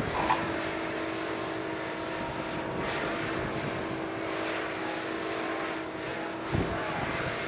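Aircraft engine running steadily, a continuous noise with a constant hum in it. About six and a half seconds in, the hum drops out with a short knock.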